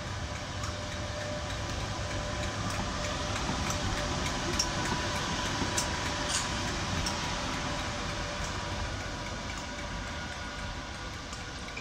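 Class 86 electric locomotive running light past at low speed: a steady electric whirring with a few held tones, and several sharp wheel clicks over the track near the middle. It swells to its loudest about five seconds in as it goes by, then fades as it draws away.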